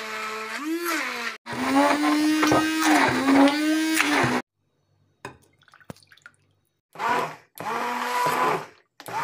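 Handheld immersion blender motor running in a bowl of cottage cheese and sugar, a steady whine whose pitch dips and recovers. It runs in about four stretches that cut off abruptly, with a near-silent gap in the middle broken by a few light clicks.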